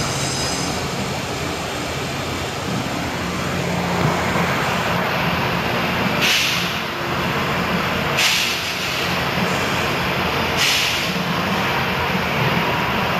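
Steady rushing workshop noise with a faint low hum, broken by three short hisses, each about half a second long and about two seconds apart, starting about halfway through.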